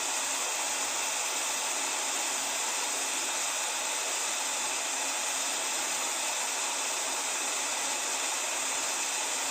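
Cooling fan running with a steady, even hiss of moving air, blowing on a tablet's bare mainboard to keep it cool while the back case is off.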